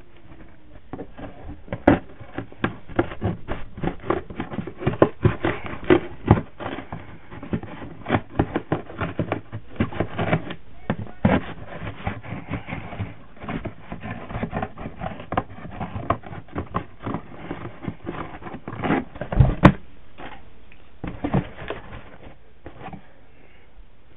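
Cardboard shoebox being cut through to make speaker holes: a long run of irregular snips, crunches and scrapes, with one louder thump about three-quarters of the way through.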